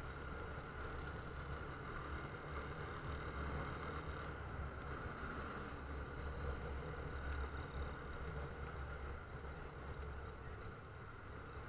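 Vehicle on the move: an engine running steadily under a constant rumble of road and wind noise.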